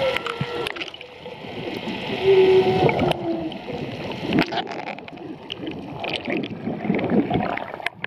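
Humpback whale song heard underwater: a short note right at the start and a long low steady note about two to three and a half seconds in, over sharp clicks. In the second half, bubbling and sloshing water.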